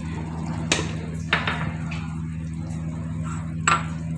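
A cooking spoon knocking sharply against the pot three times while the frying masala is stirred, two knocks close together near the start and one near the end, over a steady low hum.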